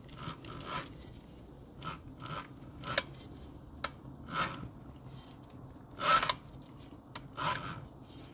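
Baotian BT125T-2 scooter's 125 cc engine being turned over by hand at the variator pulley, heard as a row of short, irregular scraping and rubbing sounds about a second apart. The engine has just been freed from seizing and now turns all the way round, working against compression.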